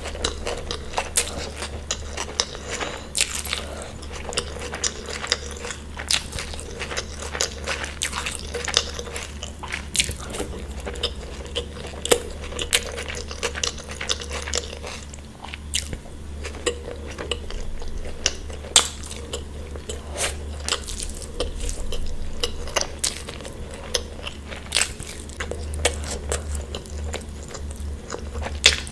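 Close-miked eating: biting into and chewing food, with many crisp crunches and wet chewing noises and an occasional clink of cutlery or a plate. A steady low hum runs underneath.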